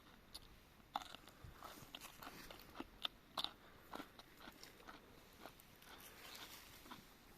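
Biting into crisp fried falafel and chewing it: an irregular run of sharp crunches, the loudest about one and three seconds in.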